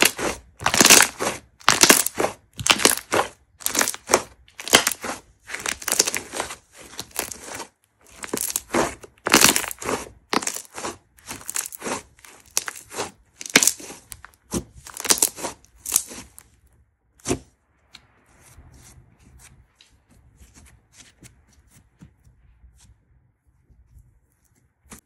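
Thick, fluffy slime squeezed and kneaded by hand, crackling and popping with trapped air at each squeeze, about once a second. About two-thirds of the way through the squeezing stops with a sharp click, and only faint, soft handling of the slime follows.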